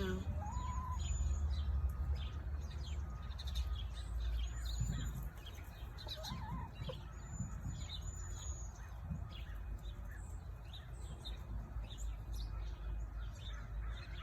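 Chickens pecking and scratching at a feed-filled plastic Wiffle ball, giving short soft calls, with many small quick taps. Small birds chirp high above, over a steady low rumble.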